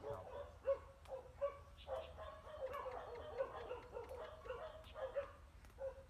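An animal calling over and over in short, quick yelps, with sharp clicks now and then between the calls.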